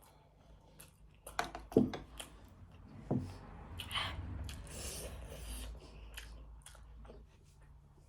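Close-miked eating: chewing with sharp mouth smacks, the loudest just under two seconds in and another about three seconds in, then a softer stretch of wet chewing.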